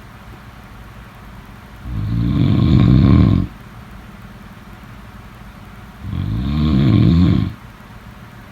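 Snoring: two long snores about four seconds apart, each lasting about a second and a half.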